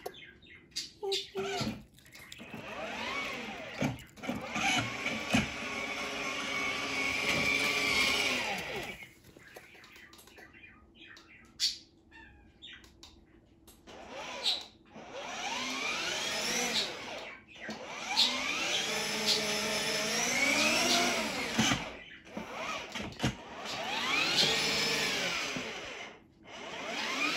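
Electric drive motors of a children's ride-on toy car whining as it drives, the pitch rising as it speeds up and falling as it slows, three times with short pauses between.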